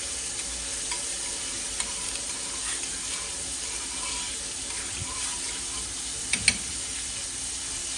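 Steady sizzle of fish frying in hot oil, with a few light clicks and, near the end, two sharper clicks close together.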